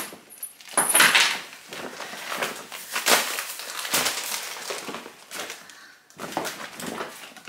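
A string of irregular rustles and light knocks as groceries and shopping bags are handled on a kitchen counter.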